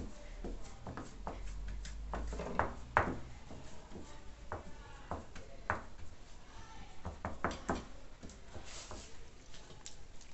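Irregular knocks and taps of a metal pie pan resting on a stove grate as dough is pressed into it by hand, loudest about three seconds in.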